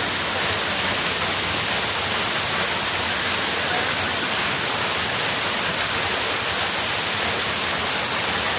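Waterfall pouring down in heavy flow: a steady, loud rushing of falling water with no breaks.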